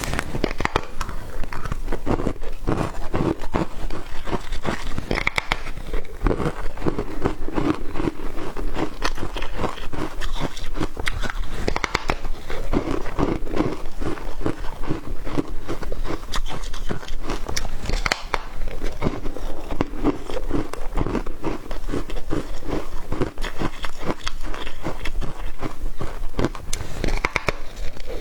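Foam ice being bitten and chewed close to the microphone: dense, continuous crunching and crackling without a pause.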